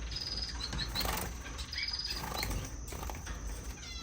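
Small finches chirping: scattered short high peeps and a couple of brief, rapid trills, over a steady high-pitched whine.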